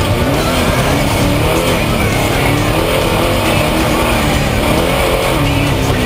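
Off-road race truck's engine running hard at speed, mixed with background music.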